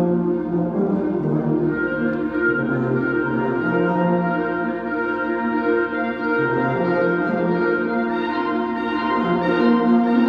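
Live saxophone and brass ensemble playing long held chords that shift every second or two, swelling slightly near the end.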